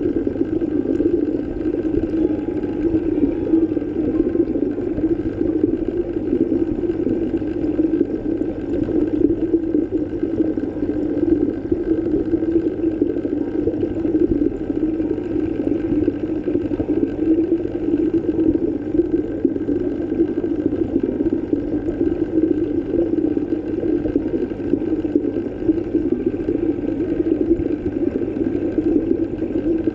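Steady underwater ambience: a constant low rumble with faint steady hum tones and no rhythm or melody.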